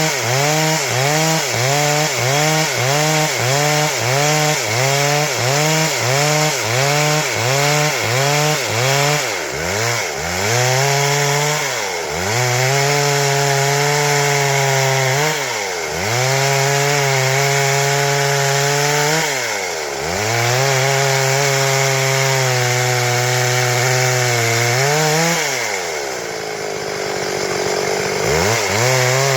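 Stihl MS 382 two-stroke chainsaw cutting wood at high revs. For the first several seconds its pitch dips and recovers about twice a second, then it holds steady with a brief dip every few seconds. It falls off toward idle for a couple of seconds near the end, then revs back up.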